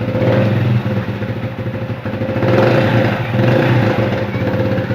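Motorcycle engine running steadily at idle, rising slightly about two and a half seconds in.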